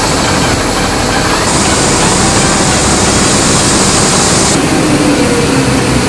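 New Holland CX5.90 Hillside combine harvester's diesel engine and machinery running loudly and steadily, with its unloading auger out over a grain truck. A brighter, higher hiss joins in from about a second and a half in and stops about three seconds later.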